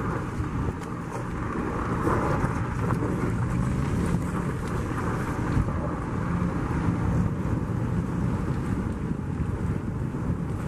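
Car driving slowly over a snowy lane: a steady low engine hum with tyre and road rumble.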